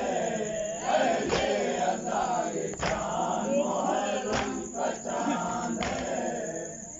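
A group of men chanting a Muharram nauha (lament) together, with a sharp slap of matam chest-beating about every second and a half, four times. The chanting fades near the end.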